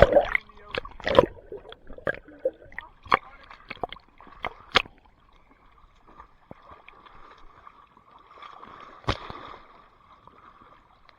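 Water splashing and sloshing in a swimming pool: a quick run of sharp splashes over the first few seconds, quieter lapping after, and one more splash about nine seconds in.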